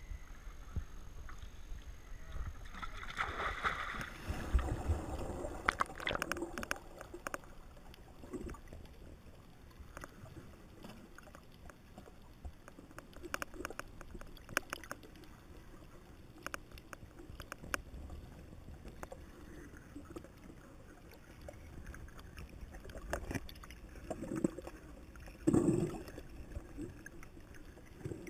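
Water sloshing and splashing at the surface. After a few seconds this gives way to muffled underwater sound heard through the camera housing: scattered sharp clicks and pops, with louder gurgling bursts of bubbles near the end.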